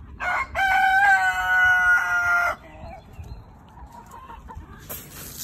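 A rooster crowing once: one loud crow of about two and a half seconds, its long note held steady before it drops away.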